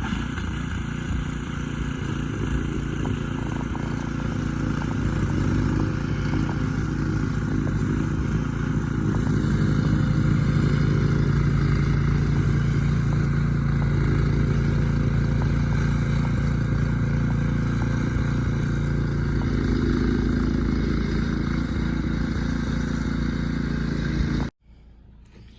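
A motor engine running steadily at an even pitch, swelling slightly through the middle, then cutting off suddenly near the end.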